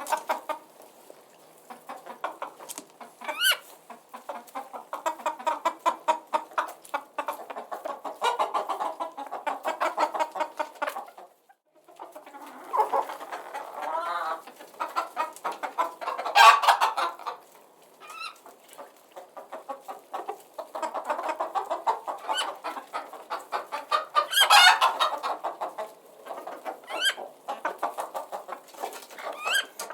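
A flock of chickens clucking continuously in quick, overlapping calls. Louder drawn-out squawks stand out about halfway through and again near two-thirds of the way, with a brief lull just before the middle.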